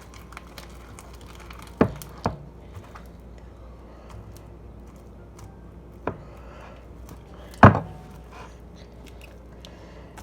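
Four sharp knocks, the loudest near the end, with faint sticky clicks between, as clear-glue slime is stirred and worked. The slime is not activating.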